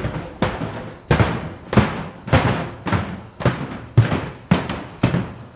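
ElevenLabs AI-generated sound effect of a man falling down stairs: a run of heavy thuds and knocks, about two a second.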